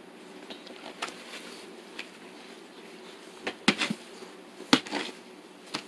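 Husky puppy nosing and mouthing a stink bug on a tile floor: a few sharp little clicks and taps, bunched about three and a half to five seconds in, over a faint steady hum.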